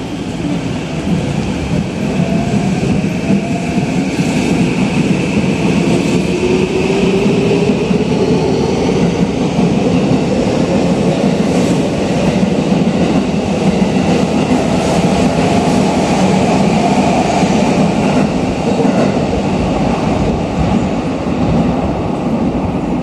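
Tokyo Metro 15000 series subway train pulling out of an underground station and gathering speed. A loud, steady rumble of wheels on rail runs under a motor whine that climbs steadily in pitch as the train accelerates.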